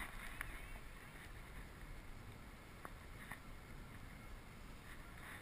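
Quiet ambience aboard a dragon boat resting on a river: a steady low rumble of wind and water, with a couple of faint knocks about three seconds in.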